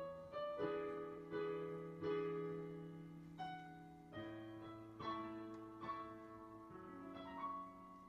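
Background piano music: a gentle melody of single notes and chords, each struck and left to ring and fade, a new one coming about once or twice a second.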